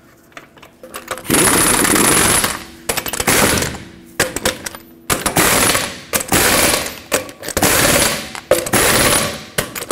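Impact gun hammering lug nuts down onto a Ford F-150 wheel, in about six short bursts of a second or so each, one nut after another, bottoming them out before torquing.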